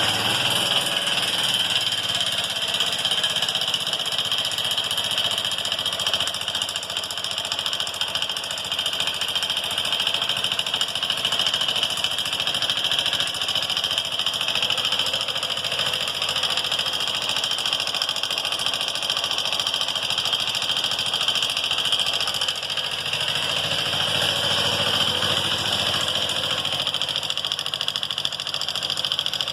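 Honda CG 150 Fan motorcycle's single-cylinder engine idling steadily, with a steady high-pitched noise over the idle. This is the engine noise whose cause the owner has not yet identified.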